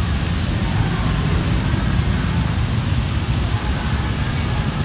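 Steady wind buffeting on the microphone, a fluttering low rumble, over an even hiss of water splashing from the pond's aerators.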